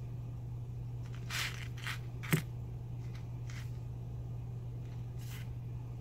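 Round-nose pliers working jewelry wire into a loop: a few faint scrapes and one sharp click about two seconds in, over a steady low hum.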